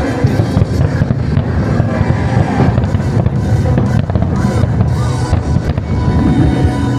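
Fireworks going off in a rapid, continuous string of bangs and booms, with music playing alongside.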